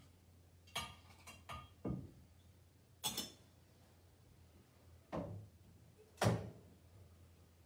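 Knocks and clinks of altar vessels and fittings being handled and set down after communion: about seven separate sharp sounds, a bright clink about three seconds in and the loudest knock about six seconds in.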